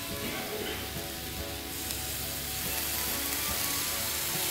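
Chicken sizzling in a hot pan as water is poured in from a steel jug, the sizzle and hiss growing louder about two seconds in. Faint background music plays under it.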